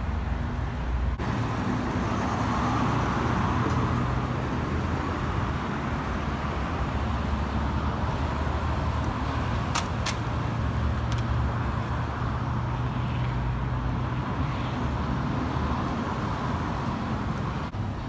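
Steady low rumble of road traffic, with two sharp clicks close together about halfway through.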